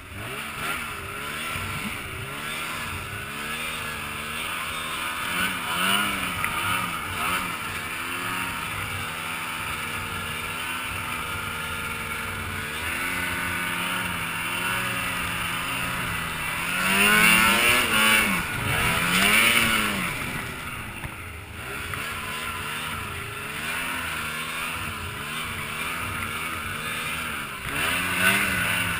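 Snowmobile engine heard from on board, its pitch rising and falling again and again as the throttle is worked through deep snow, with the hardest revving about seventeen to twenty seconds in.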